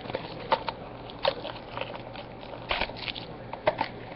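Trading card packs and cards being handled: a foil pack wrapper crinkling and cards rustling, in short sharp crackles and clicks a few times a second.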